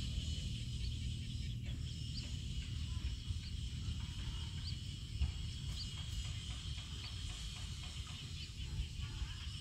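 Outdoor field ambience: a steady high-pitched insect drone, with a low wind rumble on the microphone and faint short chirps repeating throughout.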